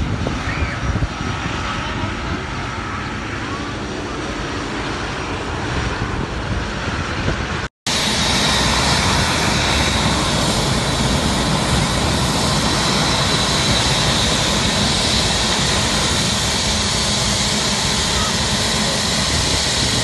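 Jet airliners taxiing. First a Boeing 777's twin engines give a steady rush of jet noise. After a sudden cut, a four-engined Airbus A380 taxis close by: a louder, steady jet rush with a high engine whine.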